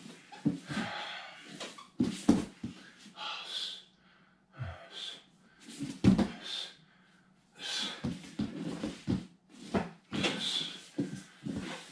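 A man breathing hard in short, irregular breaths while drilling on his own, mixed with soft thuds and scuffs of his hands, feet and body on foam interlocking mats.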